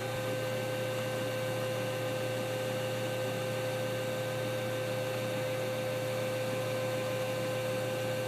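HP LaserJet 3500 colour laser printer running its calibration cycle after a toner cartridge change: a steady hum with a constant mid-pitched tone.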